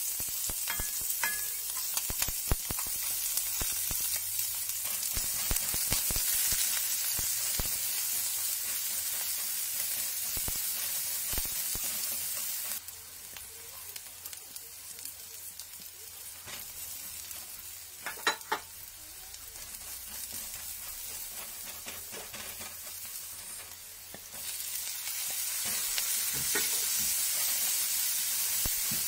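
Diced onion, then garlic and tomato, sizzling in hot oil in a stainless-steel wok, with the clicks and scrapes of a spatula stirring. The sizzle turns quieter for about ten seconds in the middle, then picks up again.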